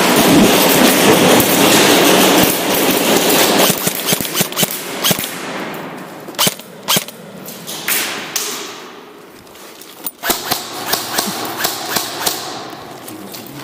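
Airsoft guns firing: a dense, loud stretch of noise for about the first four seconds, then scattered sharp single shots and snaps.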